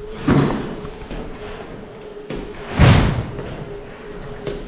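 Two thuds, a short one just after the start and a louder, heavier one about three seconds in, over a steady hum.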